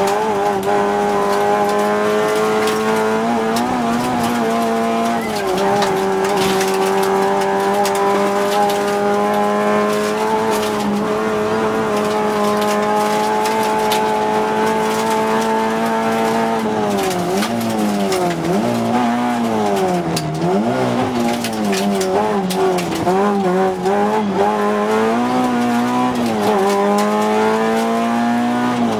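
Rally car engine heard from inside the cabin, held at high, fairly steady revs on a fast stretch. About two-thirds of the way through, the revs drop and rise several times, as when the car brakes and re-accelerates through corners, then climb back to a steady high note near the end.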